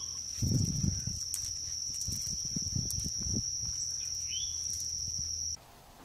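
Insects trilling in one steady high tone, with a small bird chirping twice in short rising calls and about three seconds of rustling and knocks close by. The outdoor sound cuts off abruptly near the end.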